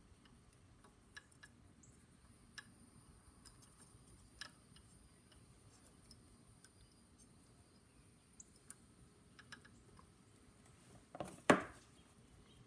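Small, faint metal clicks and ticks of hand tools working the parts of an Edison Diamond Disc reproducer clamped in a bench vise, with one much louder knock near the end.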